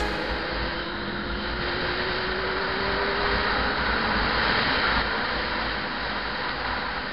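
Yamaha R6 inline-four motorcycle running on the move, with heavy wind noise on the camera microphone; a faint engine note rises slowly over the first few seconds as the bike accelerates.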